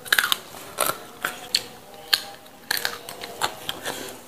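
Crisp crunching and snapping of raw leafy greens and their stems being bitten off and chewed close to the microphone, in quick irregular crunches.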